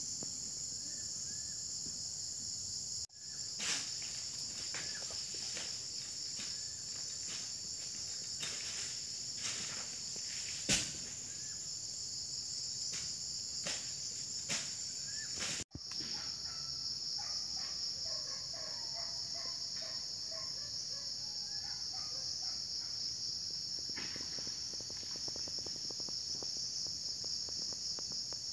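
Steady high-pitched insect chorus in vegetation, a continuous shrill trill. Scattered clicks and knocks run through the first half, one louder about eleven seconds in. Faint short chirps, likely birds, follow in the second half. The sound cuts out for an instant twice.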